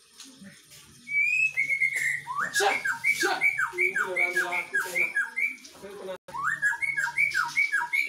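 Caged songbird singing loudly. It opens with a couple of rising whistles, then a fast run of repeated sweeping whistled notes, about three a second. The song breaks off briefly just past six seconds and then starts again.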